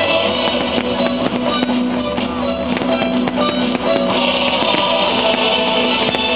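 Music with guitar and drums, growing fuller about four seconds in.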